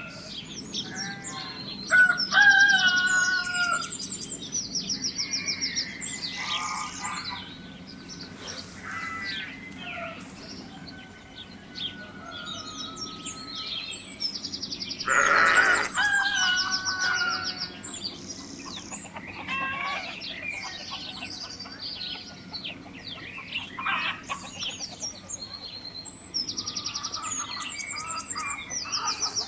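Chickens clucking and small birds chirping with quick high trills, with one louder, longer call about halfway through.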